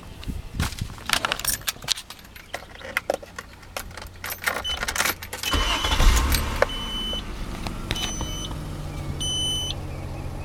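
Clicks and knocks with keys jangling, then about five and a half seconds in the 1997 Infiniti I30's V6 is started and settles into a steady idle. Over the idle a warning chime beeps in short repeated tones, the door-open reminder.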